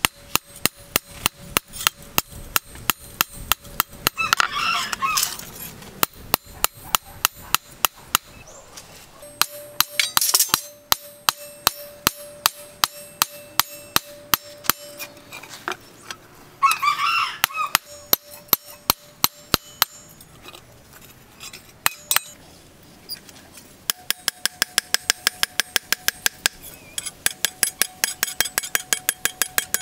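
Hand hammer striking a knife blade held in tongs on a steel post anvil, about three to four ringing blows a second with brief pauses, a steady metallic ring sustained under them; near the end the blows come faster and the ring sits a little higher. Three short calls of about a second each sound over the hammering.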